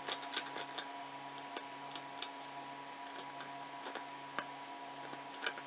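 Faint, irregular clicks and light scrapes of fingers handling a small 3D-printed wood-fill (PLA with wood fibres) crate, over a steady low hum.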